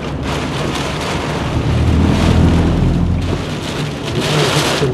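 Heavy rain pelting a moving car's roof and windshield, heard from inside the cabin. A low rumble swells about two seconds in and fades a second or so later.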